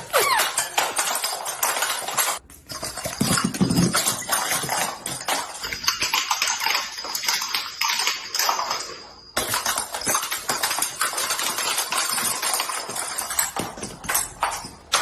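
Chiropractic back cracking: a dense run of sharp pops and clicks that breaks off abruptly twice, about two and a half and nine seconds in.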